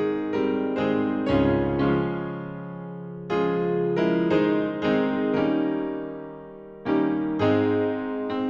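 Slow, gentle piano music: notes and chords struck about twice a second, with a couple of longer chords left to ring and fade.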